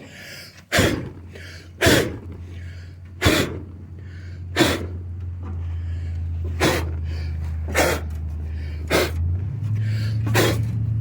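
Old riding lawnmower's engine cranking and firing unevenly: sharp pops about once every second or so over a low steady drone that builds louder toward the end as the engine begins to catch.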